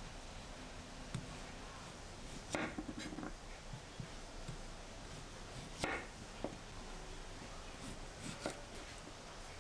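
Chef's knife slicing a whole Korean radish into rounds, each cut ending in a short knock of the blade on a bamboo cutting board. There are about eight separate cuts at uneven intervals, the loudest about two and a half and six seconds in.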